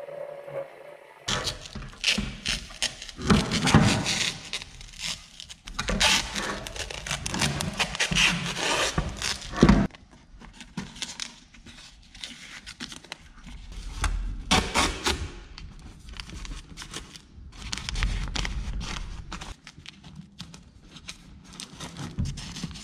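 Masking tape being pulled off the roll and pressed on, with masking paper crinkling and a few knocks against the workbench, in irregular bursts, as an exhaust muffler is masked before painting.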